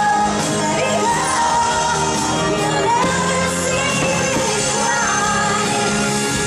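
Fireworks-show soundtrack: music with voices singing a held, gliding melody.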